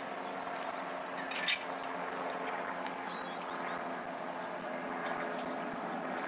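Steady background hum with a single sharp click about a second and a half in.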